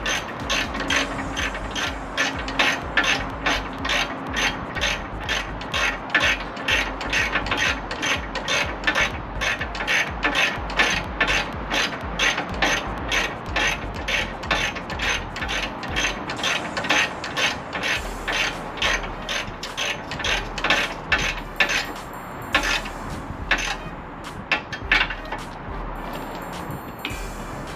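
Ratchet wrench clicking in quick, even strokes, about three a second, thinning out to scattered clicks after about sixteen seconds.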